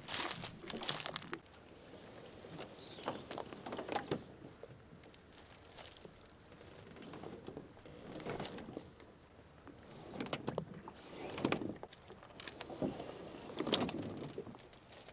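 Footsteps crunching and crackling over a bed of dry, flattened reed stalks, with the hull of a small boat scraping through the reeds as it is hauled ashore by its rope. The crackling comes in irregular bursts.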